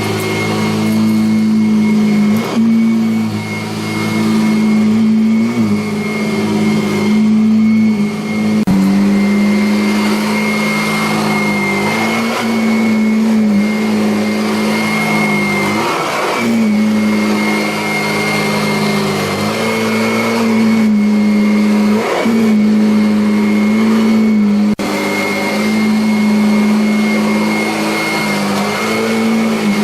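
Kirby Avalir upright vacuum cleaner running on carpet, a steady motor hum with a thin high whine. The motor pitch dips briefly every few seconds.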